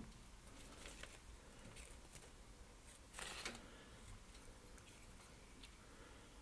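Near silence, with faint scattered ticks and rustles of hands handling fly-tying dubbing, and one louder brief rustle about three seconds in.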